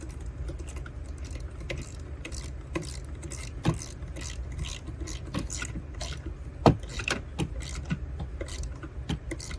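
Light irregular metal clicks and taps, about two a second with a louder one near the middle, from a 10 mm socket tool tightening the positive terminal clamp nut on a 12-volt auxiliary battery. A steady low hum runs underneath.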